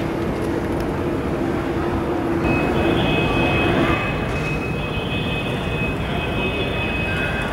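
Steady jet-aircraft noise heard through a terminal window: a continuous low rumble, with a thin steady high whine joining about two and a half seconds in.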